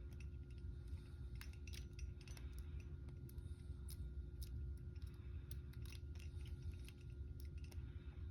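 Faint, irregular small metallic clicks and scrapes of a lock pick and tension wrench working the pins inside an old Master Lock padlock, over a steady low hum.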